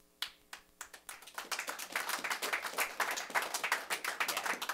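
A group of people applauding, beginning with a few scattered claps and filling out into steady clapping about a second and a half in.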